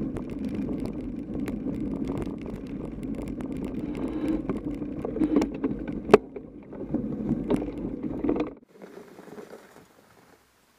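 Radon ZR Race 6.0 mountain bike riding a snow-covered trail, heard close up at the front fork: a steady rumble of the knobby tyre rolling through snow with rattles and clicks from the bike, and one sharp knock about six seconds in. The sound cuts off abruptly after about eight and a half seconds and is followed by a fainter stretch of rolling noise.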